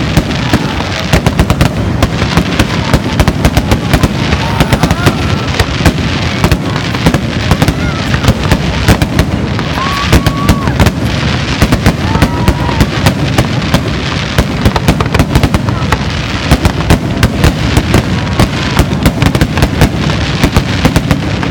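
Fireworks display: aerial shells bursting in a rapid, unbroken barrage of loud bangs, many per second, over a low rumble.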